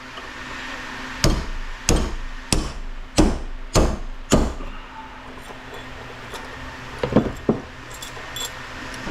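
Hammer striking a punch to drive the solid brass insert out of a fire-sprinkler body clamped in a vise: six sharp, evenly spaced metal blows about half a second apart, then two lighter taps.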